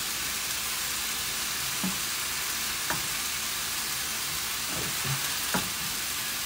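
Steady frying sizzle from quinoa cooking in broth in a stainless steel pot and mushrooms browning in a pan, with a silicone spatula stirring the quinoa and scraping the pot a few times.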